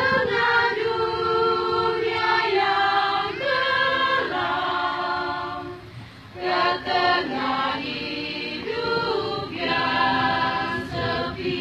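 A church congregation choir singing in sustained chords, with a brief break between phrases about six seconds in.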